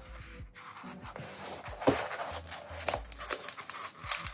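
Crinkling and rustling of packaging as a wrapped mini poster set is pulled from a cardboard kit box and handled, with a few soft knocks.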